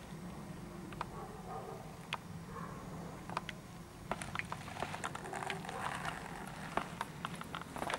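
Great Dane moving through grass with its nose down, sniffing, with scattered sharp clicks that come much more often from about four seconds in.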